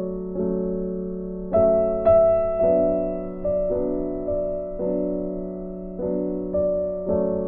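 Slow piano background music: chords struck about once a second, each ringing out and fading before the next.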